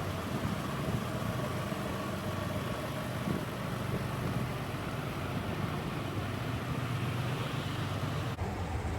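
An engine running steadily, a low even hum, with an abrupt change in the sound near the end.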